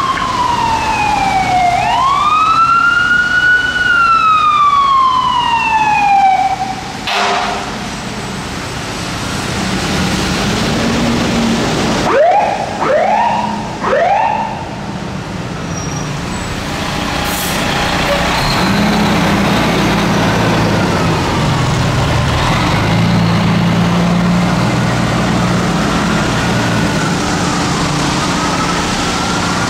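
Fire engine siren wailing, one slow fall, rise and fall in pitch over the first few seconds. About halfway through come three short rising whoops, and then a fire truck's engine running with a faint wailing siren under it.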